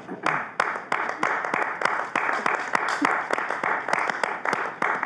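Applause from a small group of people clapping their hands, starting suddenly and going on steadily.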